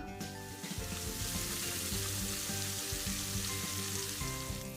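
Marinated crab pieces sizzling as they fry in hot coconut oil in a pan: a steady frying hiss.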